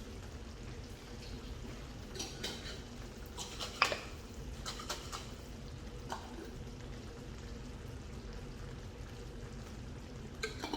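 Scattered clinks and knocks of a jar and spoon against the pot, with liquid pouring and stirring, as a little water is swirled round the korma jar to rinse out the last of the paste and added to the curry. The sharpest knock comes about four seconds in, over a low steady hum.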